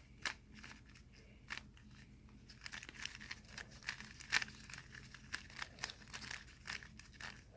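GAN 356 Air speed cube being twisted by hand: faint sharp clicks of its layers turning, sparse at first and then several a second from a little under three seconds in.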